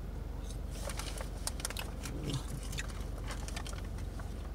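A person chewing French fries close to the microphone, with many small wet mouth clicks, over the steady low hum of the car's engine running.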